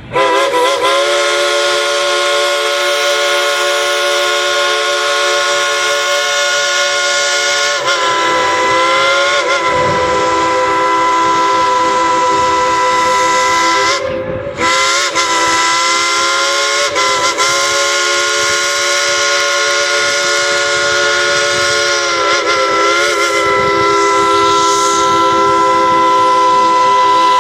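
Dollywood Express steam locomotive #70's chime whistle blowing one long, loud blast, several notes sounding together as a chord with a hiss of steam. The pitch wavers a few times as the valve is worked, and the sound dips briefly about halfway through.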